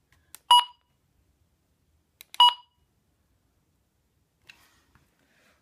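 Two short electronic beeps, about two seconds apart, from a device beeper.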